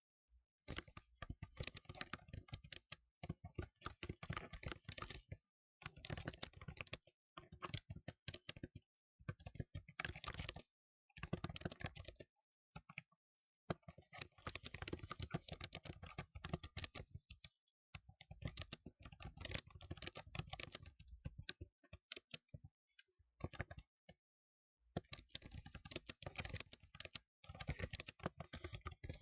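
Computer keyboard typing: rapid key clicks in bursts of a few seconds, with short pauses between them.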